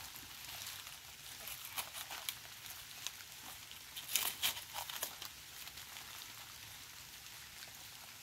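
Banana leaves rustling and crackling as a large green leaf is pulled down from a banana plant among its dry, hanging old leaves: scattered short crackles, loudest about four to five seconds in.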